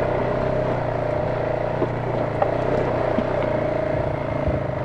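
ATV engine running steadily while riding a rough trail, with a few short knocks about halfway through.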